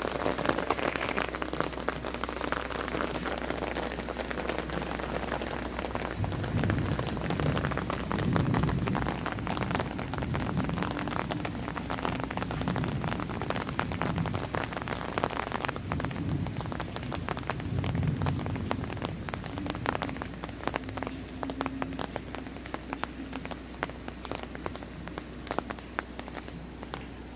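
Steady rain falling on garden surfaces, with many separate drop hits throughout. A few low rumbling stretches come through in the middle.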